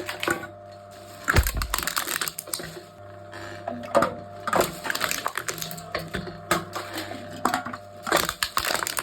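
Aluminium cans being crushed by a can-crushing machine: several bursts of crumpling and crackling metal, a few seconds apart, over a faint steady hum.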